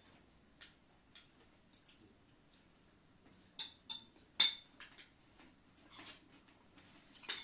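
Spoons clinking and scraping against plates during a meal: scattered light clinks, a cluster of sharper ones about three and a half to five seconds in, the loudest near four and a half seconds.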